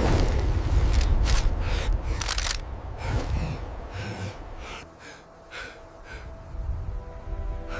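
A series of short, sharp, breathy gasps and exhalations from a person. Musical tones come in near the end.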